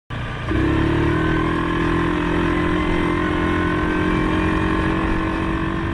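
2019 Suzuki KingQuad 750 ATV engine running steadily under way on a trail, with a steady mid-pitched whine over the engine note.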